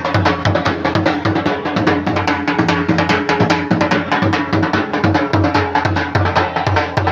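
Upbeat music with fast, steady drumming.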